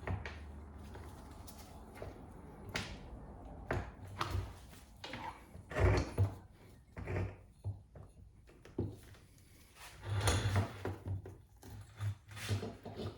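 A stiff, cold driveshaft boot being worked by hand over a double cardan joint: irregular rubbing, scuffing and knocks as it is pushed and twisted on.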